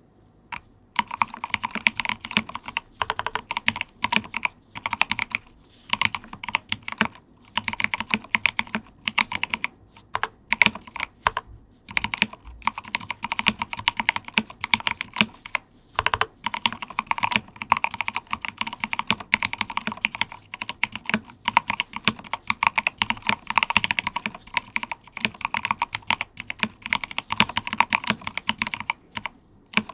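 Typing on a custom mechanical keyboard (Rama Koyu) fitted with SP SA-profile keycaps over Mauve 65g linear switches that are Krytox-lubed and filmed. Fast runs of keystrokes in bursts, with short pauses between them.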